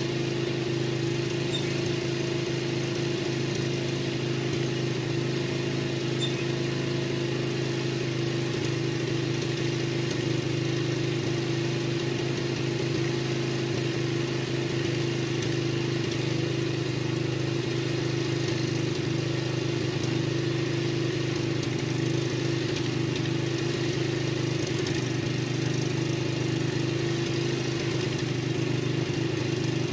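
Riding lawn mower engine running steadily at an even speed.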